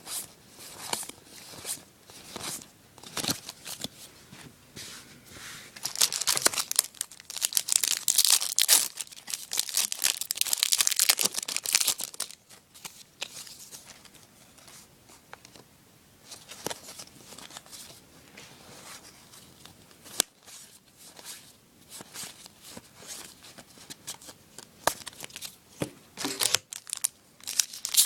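Foil-and-paper hockey card packs being torn open and crinkled, then the cards shuffled and flipped in the hands, in bursts of rustling with quieter stretches between, the longest about 6 to 12 seconds in.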